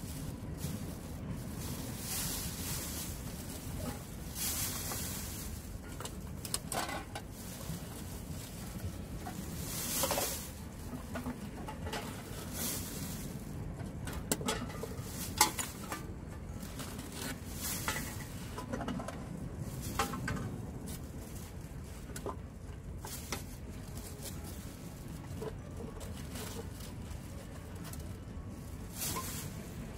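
White plastic bag rustling and crinkling in short bursts as litter is picked up from the rocks and stuffed into it, with a sharp clink of a bottle or can about halfway through. A steady low rumble of wind runs underneath.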